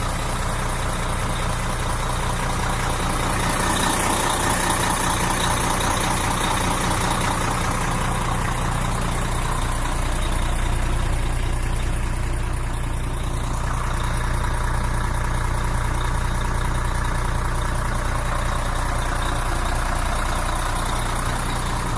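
2010 Nissan UD 460 truck's diesel engine idling steadily.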